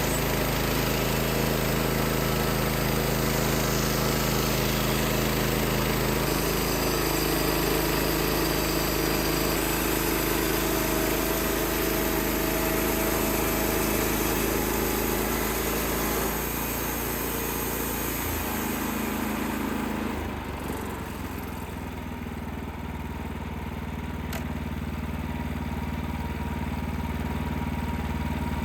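Wood-Mizer LX55 portable sawmill's 14 hp engine running with a steady hiss of sawing over it. A little past halfway the hiss fades, and about two-thirds of the way in the engine note changes and settles to a steadier, quieter run, as when a cut ends and the engine drops toward idle.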